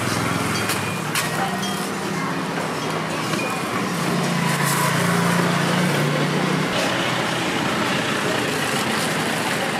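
Street traffic: a motor vehicle's engine hum swells for a couple of seconds midway over steady road noise, with a few sharp taps near the start.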